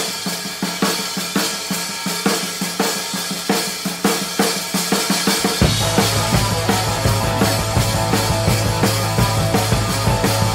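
Background rock music: a drum kit keeping a steady beat, joined by bass and other instruments about five and a half seconds in.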